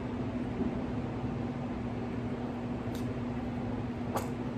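Steady mechanical hum with a constant low tone, like a fan or air-conditioning unit running, with two faint clicks about three and four seconds in.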